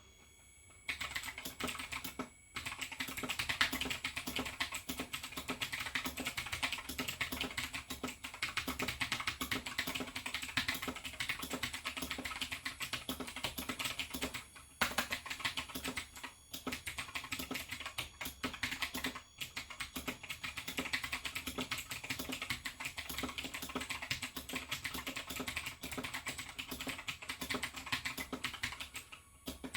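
Fast, continuous typing on a Razer BlackWidow X Chroma mechanical keyboard with clicky Razer Green switches and ABS keycaps, starting about a second in, with a few brief pauses.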